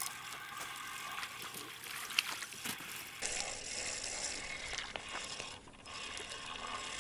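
Spinning reel being cranked quickly to wind in the line, its gears whirring with a dense run of fine clicks. It breaks off briefly a little before two-thirds of the way through.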